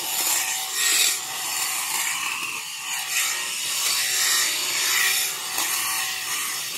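Cordless hedge trimmer used as tea-pruning shears, powered from a backpack battery, running as its reciprocating blades cut through tea bush shoots. The cutting noise is steady and swells and dips as the blade moves through the foliage.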